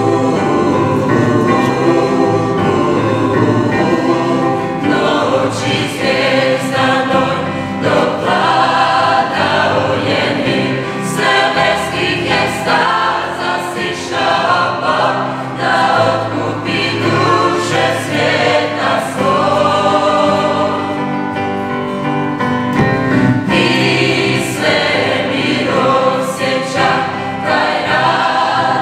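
A choir of mostly young women singing together in sustained chords.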